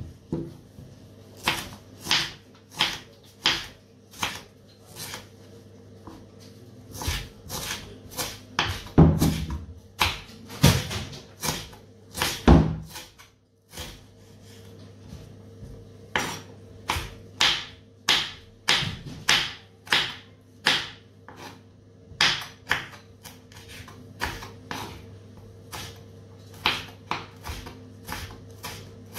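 Kitchen knife cutting raw mango into cubes on a wooden cutting board: a run of sharp taps, one or two a second, with a few heavier knocks about ten seconds in, over a faint steady hum.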